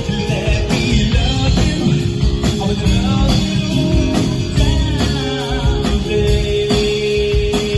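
A rock-pop band playing: electric guitar and bass over a drum kit, with a sustained melodic line on top and regular drum hits.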